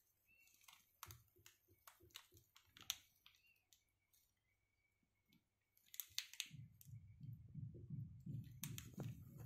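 Faint handling noise from the phone recording the video: scattered light clicks, then from about six and a half seconds in a low, uneven rubbing rumble with a few sharper clicks.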